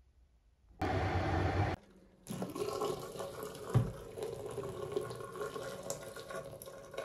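Water running from a tap into a sink, steady from about two seconds in, with a single thump partway through. A brief loud burst of noise comes about a second in, just before the flow.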